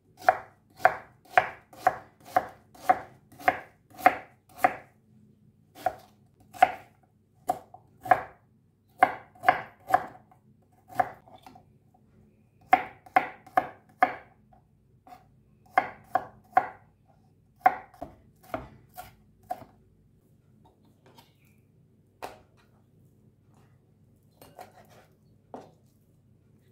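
Kitchen knife chopping onion and then garlic on a wooden cutting board: sharp knocks of the blade on the board, about two a second at first, then in irregular runs. They thin out to a few scattered taps in the last several seconds.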